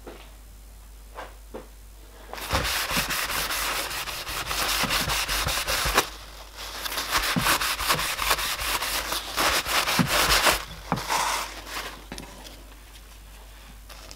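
A cloth rubbed back and forth in quick strokes over a flat steel plate, wiping it to degrease it. The rubbing comes in two spells of a few seconds each, starting about two and a half seconds in, with a brief pause near the middle.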